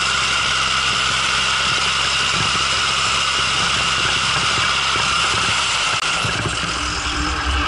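Zetor 9540 tractor's diesel engine running steadily under load while pushing snow with a front plough, with a constant hiss over it. About six seconds in, the low engine note changes.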